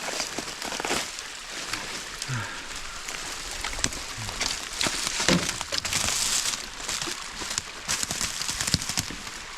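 A hiker scrambling over loose rock and brush on a steep slope: crunching footsteps, scrapes and crackling twigs throughout, with a few short grunts.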